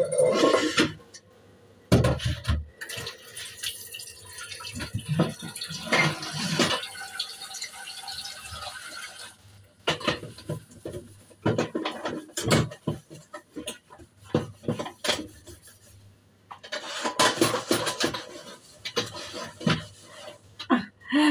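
Steel kitchen pots and containers knocking and clinking as they are moved and handled on a counter, with a steady pouring or filling sound from about three to nine seconds in.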